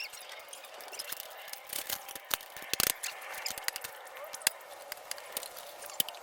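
Irregular metallic clicks and knocks of hand tools working at a motorcycle's rear axle bolt, with a quick cluster of sharper knocks about halfway through.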